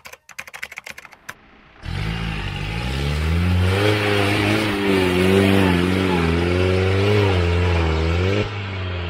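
A quick run of clicks at the start, then a Mahindra Thar's engine revving hard under load as it climbs a steep dirt slope. The pitch rises and falls for several seconds, then drops lower near the end.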